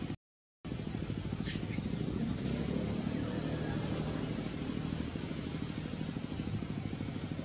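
Steady low engine-like running noise with a rapid even pulse. It cuts out briefly just after the start. A few short high squeaks come about one and a half to two and a half seconds in.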